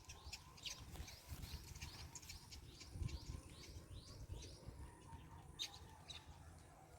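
Faint bird chirping: a quick run of short repeated chirps, several a second, thinning out after about four and a half seconds, over a low rumble.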